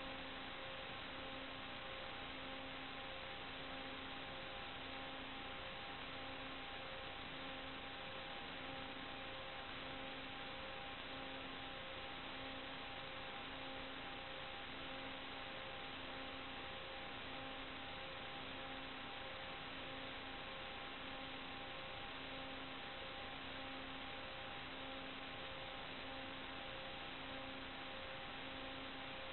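Steady electronic hiss with faint steady hum tones and a lower tone pulsing on and off about every second and a quarter: the noise of an analog FPV video link's audio channel carrying no live sound.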